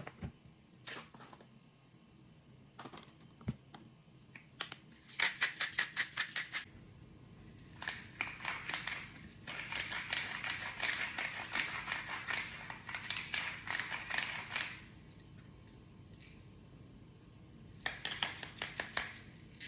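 Seasoning shakers and a pepper grinder worked over steak, heard as runs of quick rattling clicks: a short run about five seconds in, a long run from about eight to fifteen seconds, and another near the end.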